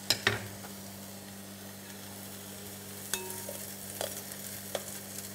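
Onions and garlic sizzling in olive oil in a wide frying pan as raw beef strips are added with tongs, with a few light clicks of the tongs against the glass bowl and pan.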